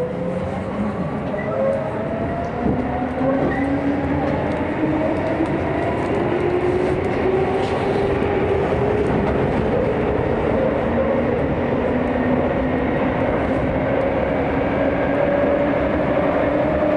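Chiba New Town Railway 9000 series electric train heard from inside the car as it pulls away and speeds up into the tunnel: its traction motors whine in several tones that climb slowly and level off near the end, over a steady rumble of wheels on rail.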